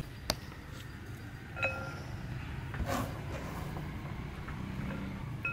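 Diced carrot pieces dropped into a ribbed glass bowl: soft taps and a couple of short clinks as the glass rings briefly, over a steady low hum.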